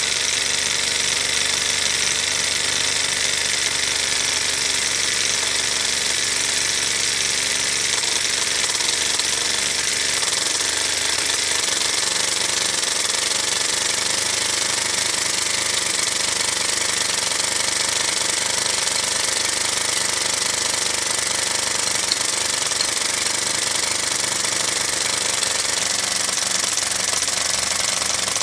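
Miniature five-cylinder radial engine model running steadily, its wooden propeller spinning.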